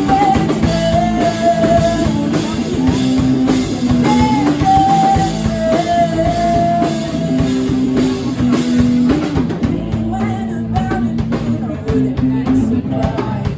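Live rock band playing an original song: drum kit, electric guitar and bass, with a held melody line running over the beat.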